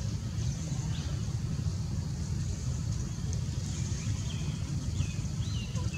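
Outdoor ambience: a steady low rumble, with faint short high chirps now and then that slide down in pitch.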